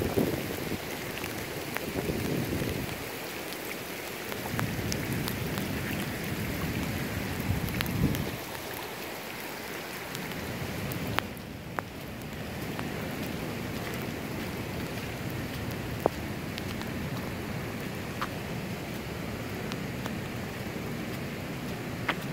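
Heavy thunderstorm rain falling steadily on a flooded asphalt parking lot, with a few sharp ticks. A low rumble comes and goes during the first eight seconds.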